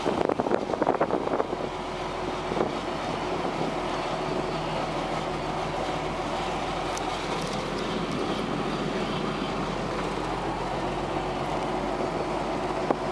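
Tractor engine running steadily at road speed, heard from inside the cab. The first second or so is louder and uneven before the sound settles into an even drone.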